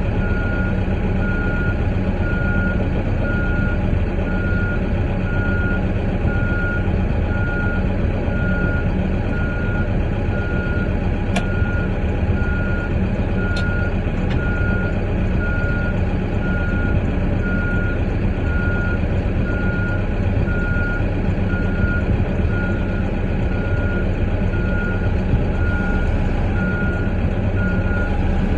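Delivery truck's reverse alarm beeping in a steady, evenly spaced single tone over the truck's diesel engine running steadily, heard from inside the cab as the truck backs up.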